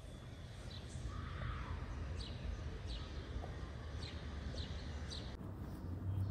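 Small birds chirping: short, high chirps that slide downward, repeating about twice a second over a low background rumble. The chirps stop suddenly about five seconds in.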